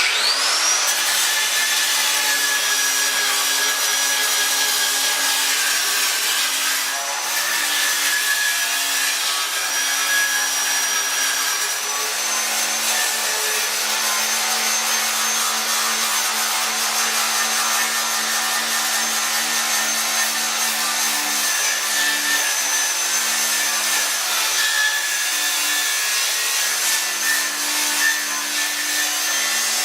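Electric angle grinder spinning up with a quickly rising whine, then grinding down weld beads and slag on a steel fuel tank, a steady, awful noisy high whine and grinding rasp.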